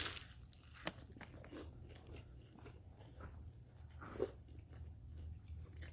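Faint crunching and chewing as someone bites into and eats a fried fish taco, with a sharper crunch about a second in.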